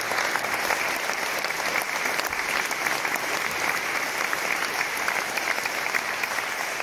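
Audience applauding: dense, sustained clapping from a crowd, easing off slightly near the end.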